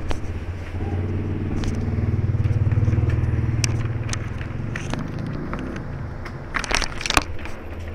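A motor vehicle's engine hum swells, is loudest about three seconds in, and fades as it passes. Sharp clicks come here and there, with a quick run of them near the end.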